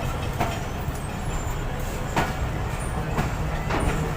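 Passenger train pulling out: a steady low rumble with a few irregular clanks of wheels on the rails.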